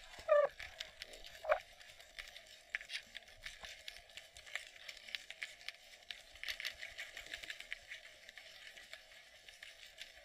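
Underwater ambience heard through a GoPro's waterproof housing: a dense, faint crackle of tiny clicks over a steady muffled hum. Two short, louder squeaks sound in the first second and a half.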